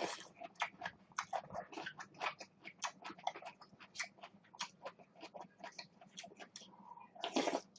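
Close-miked eating sounds: chewing and crunching with short mouth clicks, several a second and irregular, and a longer noisy burst near the end.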